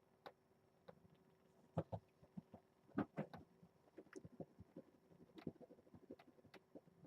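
Faint, irregular small taps and scuffles of kittens moving and playing, with two louder knocks about two and three seconds in, then a quicker run of small taps.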